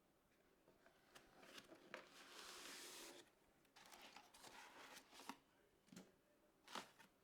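Faint handling sounds of PC parts being worked on: a rustle lasting about a second near the middle, and several small clicks and knocks, the sharpest near the end.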